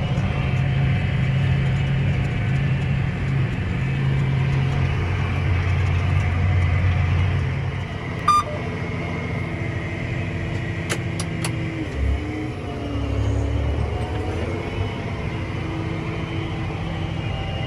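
Tractor engine running steadily under planting load, a low rumble heard from inside the cab. There is a short beep about eight seconds in and a brief thump around twelve seconds.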